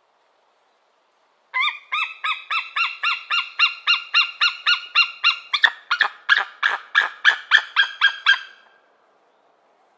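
White-tailed eagle calling: a long series of yelping notes, about three or four a second, that starts about a second and a half in. The notes grow sharper, louder and slightly quicker in the second half, and the call stops a little over a second before the end.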